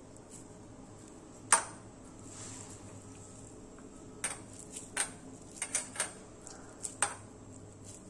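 Stainless steel mixing bowl clinking as a hand presses and shapes a chicken-chop mixture in it. There is one sharp clink about one and a half seconds in, then a run of lighter taps between about four and seven seconds in.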